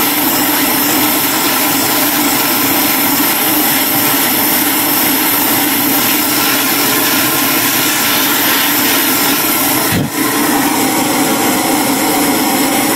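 Handheld gas torch burning with a loud, steady rushing hiss as its flame scorches oak blocks, with a brief dip about ten seconds in.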